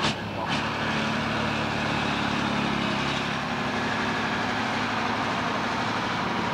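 Piston aero engines of warbird fighters idling on the taxiway, a steady drone with a low hum. Two sharp knocks come in the first half second.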